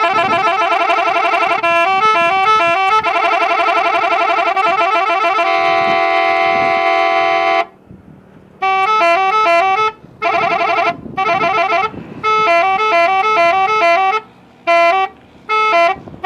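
Telolet-style multi-tone musical bus horn playing: a warbling chord and stepping tune patterns, then a long held chord that cuts off about halfway through. After a short pause it plays several short bursts of the stepping tune, with brief breaks between them.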